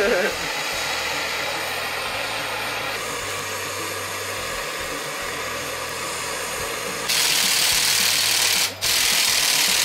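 Butane torch flame hissing steadily on a seized hub bearing outer race, heating it to break it free. About seven seconds in, a cordless power drill starts running loudly, turning the screw of a bearing puller to draw the race out, stops for a moment near the end and starts again.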